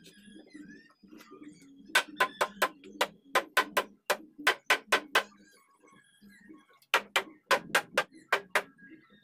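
Quick sharp taps on the teak door's panel boards: a run of about a dozen at roughly four a second, a pause, then a second run of about eight.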